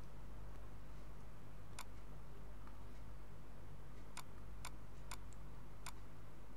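Computer mouse clicks: one a couple of seconds in, then four in quick succession in the second half, over a steady low electrical hum.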